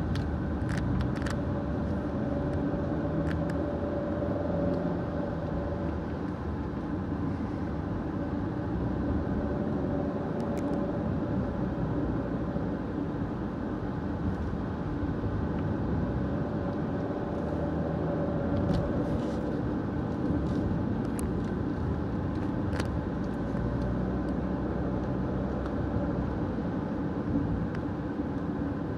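Car cabin noise while driving: a steady mix of engine and tyre-on-road noise. A few faint sharp ticks come now and then.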